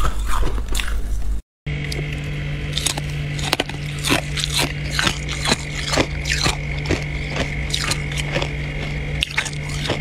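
Crunching bites of freezer frost, then, after a short break, a long run of repeated scraping strokes through packed freezer frost, about two to three a second. A steady hum runs under the scraping.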